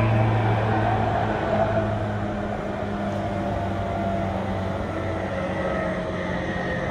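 Running noise of a Tokyu 5050 series electric train heard inside the car: the steady hum and whine of its Hitachi IGBT-VVVF-controlled traction motors over the rumble of wheels on rails. The level eases over the first two seconds, then holds steady.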